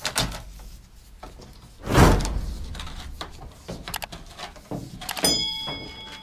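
Subscribe-button animation sound effects: a whoosh about two seconds in, then a click and a short bell chime near the end. Beneath them come faint knocks and rubs from a rubber window seal being pulled out of the frame.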